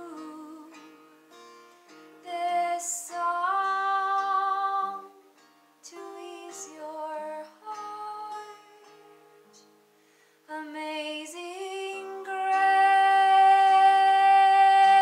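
A woman singing with acoustic guitar accompaniment, pausing briefly twice, then holding one long note near the end.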